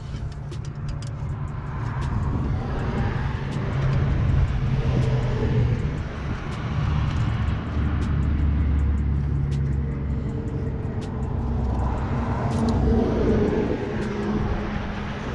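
A car engine running steadily, its pitch drifting slightly up and down.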